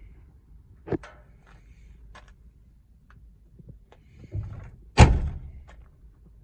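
Pickup truck cab door being shut: a heavy slam about five seconds in, the loudest sound, with a lighter knock about a second in and a dull thud just before the slam.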